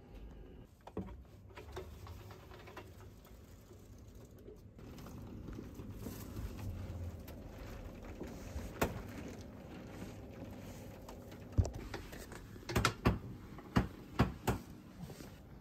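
Soft rustling and handling noise, then a quick cluster of sharp knocks and taps about three quarters of the way in as a person climbs out of a capsule bunk and steps down onto a carpeted floor.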